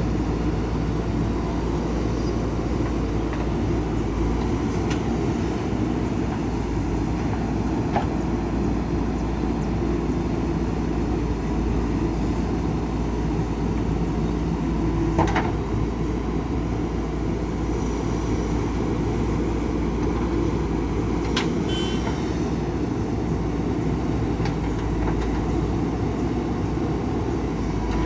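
A JCB backhoe loader's diesel engine running steadily, with a few sharp knocks several seconds apart.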